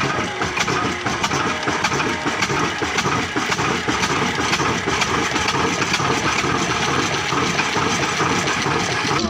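Old 22 HP Ruston Hornsby stationary diesel engine running steadily while driving an atta chakki flour mill, with a dense, rapid clatter.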